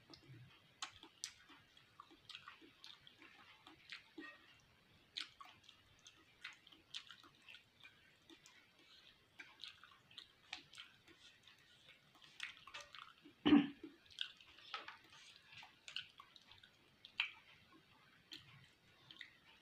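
Close-up chewing of beef fat: soft, irregular wet smacks and clicks of the mouth, with one louder, deeper sound about two-thirds of the way through.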